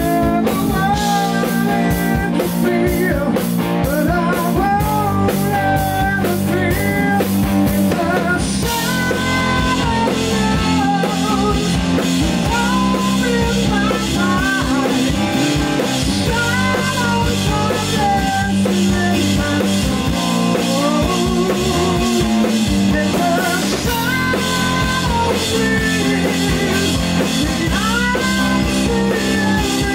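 Live rock trio playing loud: electric guitar, bass guitar and drum kit, with the guitarist singing. Cymbals get brighter and busier about eight seconds in.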